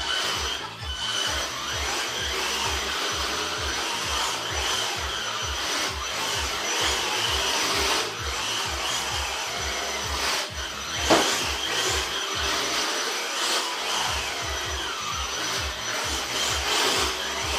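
HB Cyclone WCE radio-controlled touring car drifting on carpet: a steady whine from its motor over the rough scrubbing of its tyres, with a sharp knock about eleven seconds in.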